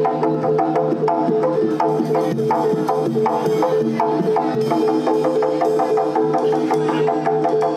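Live East Javanese jaranan ensemble music: fast repeated pitched metal notes over sustained low gong-like tones, with a steady run of drum strokes.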